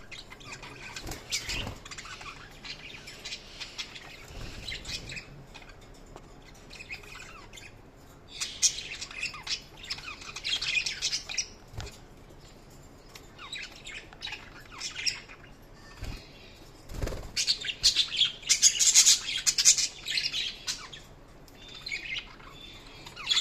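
Budgerigars chirping and warbling, a busy stream of quick high chirps with squawks. It grows louder and denser in two stretches, the second near the end the loudest, with a few soft thumps between.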